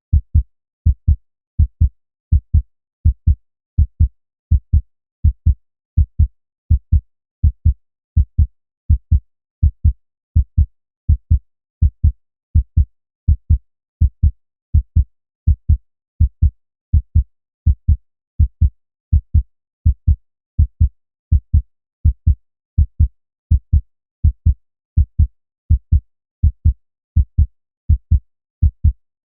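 Human heartbeat: a steady, deep lub-dub, each beat a pair of low thumps, repeating at an even pace a little faster than once a second.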